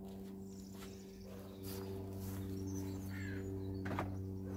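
A steady low hum runs underneath, with small birds chirping now and then. A few light clicks and knocks come from someone rummaging for screws.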